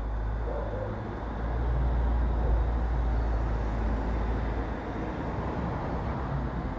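Street traffic ambience: a steady low rumble of passing vehicles, swelling for a few seconds as a vehicle passes close by.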